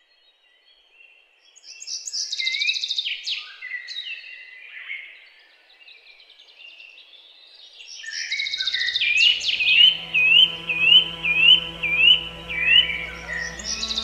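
Songbirds chirping and singing. About eight seconds in, music with long held notes comes in beneath them, and the birds give a run of about seven quick rising chirps, roughly two a second.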